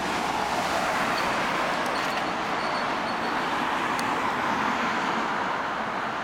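Steady rushing noise of road traffic: car engines and tyres on the road.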